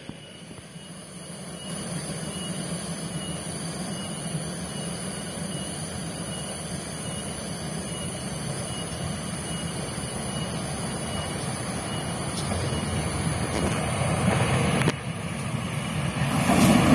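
A CC 204 diesel-electric locomotive approaching at the head of a passenger train: a steady low engine drone that slowly grows louder as it nears, loudest near the end.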